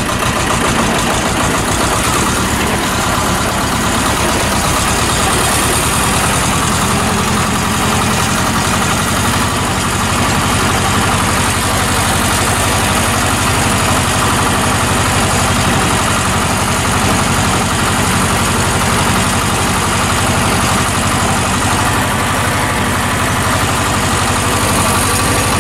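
Władimirec T-25 tractor's two-cylinder air-cooled diesel engine running steadily in gear as the tractor drives, heard close up from the open, cabless driver's seat.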